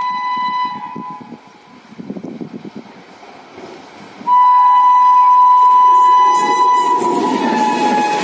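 WAP-7 electric locomotive horn: a sounding horn fades out about a second in, then a loud, sudden second blast starts about four seconds in and drops in pitch as the locomotive passes. From about six seconds in, the rushing rumble of the express's coaches passing at speed rises under it.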